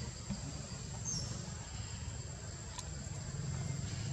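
Outdoor ambience: a steady high-pitched insect drone over a low steady rumble, with a brief high chirp about a second in.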